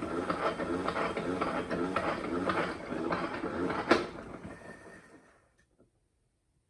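O-Cedar EasyWring spin mop wringer spinning the wet mop head in the bucket: a steady whirring with rapid, regular clicking. A sharp click comes about four seconds in, and the spin dies away, fading out over the next second and a half.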